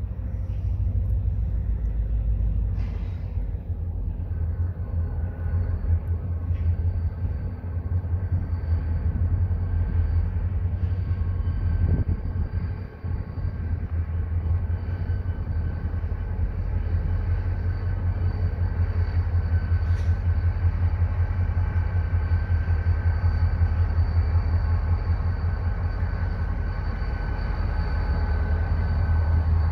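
Three Union Pacific diesel-electric locomotives running, a deep steady rumble with a thin high whine held over it from about four seconds in, growing a little louder near the end.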